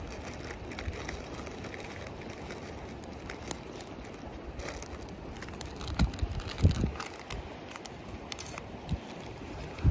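Wood fire crackling in a small camp stove, with wind on the microphone, scattered faint clicks and a few low thumps of handling about six to seven seconds in.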